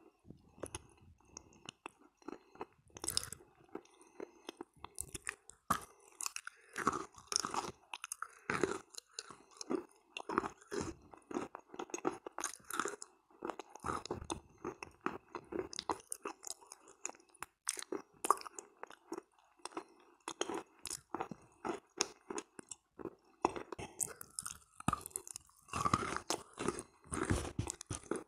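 Close-miked chewing of a soft pressed chalk-and-clay 'halva' coated in kaolin clay cream: irregular soft crunches mixed with wet mouth sounds.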